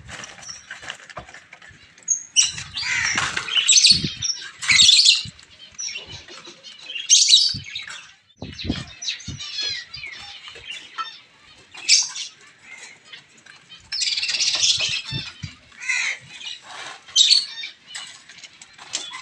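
Diamond doves beating their wings in a wire cage as they are caught by hand, in repeated short flurries, with a few knocks among them.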